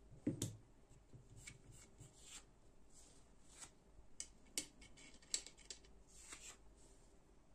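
Faint clicks, taps and scrapes of a small precision screwdriver working the screws of a metal folding knife, the parts handled over a silicone mat. A knock with a low thud about a third of a second in is the loudest, and a couple of sharp clicks come around the middle.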